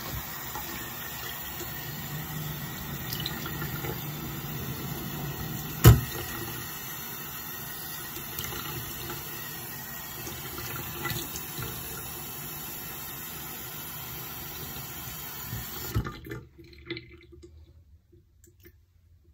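Sink tap running steadily, with one sharp knock about six seconds in. The water shuts off suddenly about three seconds before the end, leaving a few faint clicks.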